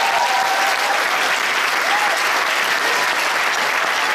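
Audience applauding after a percussion piece ends, with a few cheers rising above the clapping.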